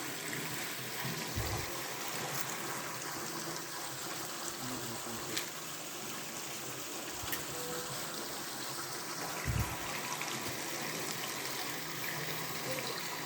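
Mountain waterfall: water falling and splashing in a steady, even rush. Two brief low thumps, about a second and a half in and again near ten seconds.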